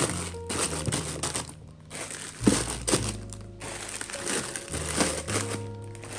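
Plastic instant-noodle packets crinkling as they are handled and stacked into a plastic storage box, with a sharper knock about two and a half seconds in. Background music plays underneath.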